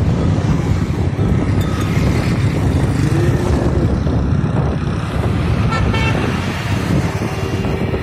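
Steady road and engine noise from a moving vehicle in traffic, with a brief vehicle horn toot about six seconds in.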